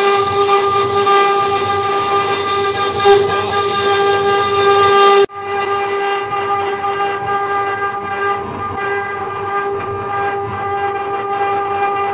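CNC wood-carving router's spindle running with a steady high whine as its small bit mills a relief into wood. The whine breaks off for an instant about five seconds in and resumes slightly duller.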